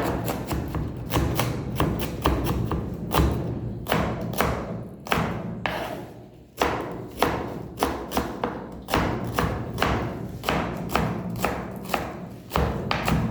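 Knife chopping on a wooden cutting board: quick, irregular knocks several times a second, with a brief pause about six seconds in before the chopping resumes.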